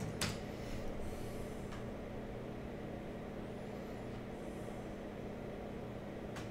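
Steady low room hum with a constant low tone, broken by a few faint clicks in the first two seconds and one more near the end.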